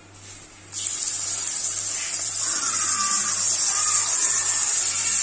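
Raw prawns hitting hot oil in a kadai and sizzling: the hiss starts suddenly about a second in and keeps going.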